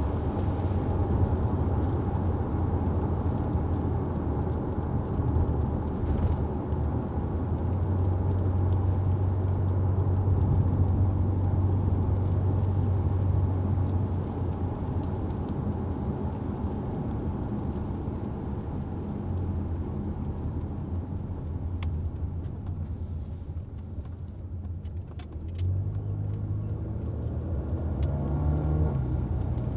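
Car driving on the road: a steady engine and road rumble, with the engine note stepping up near the end as it speeds up.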